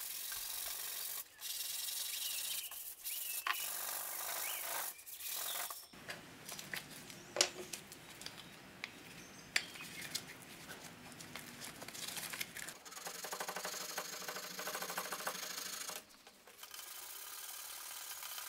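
Sandpaper on a hand sanding block rubbed back and forth over walnut veneer, in several runs of strokes with short pauses between.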